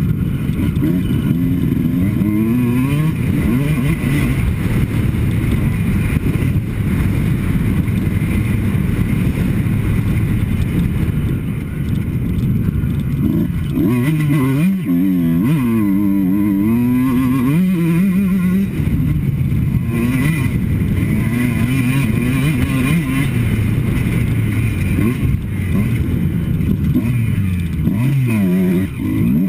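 Two-stroke Kawasaki KX motocross bike's engine revving up and falling back over and over as it is ridden hard around a dirt track, heard on board from the rider's helmet. The biggest rises and falls in pitch come around the middle.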